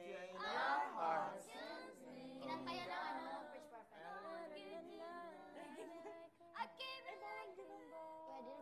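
Young voices singing a song together, the pitch sliding between words, with long held notes near the end.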